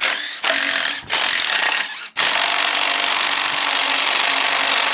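Handheld power tool, an impact wrench, run in three short bursts and then held on steadily from about two seconds in.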